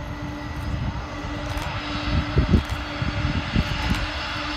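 Boeing 747-400 jet engines running as the airliner rolls along the runway: a steady engine noise with a hiss that grows a little toward the end.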